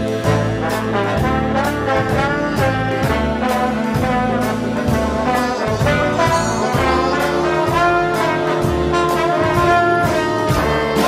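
Swing big band playing an instrumental passage: trombones and saxophones carry the tune over a bass line and a steady cymbal beat.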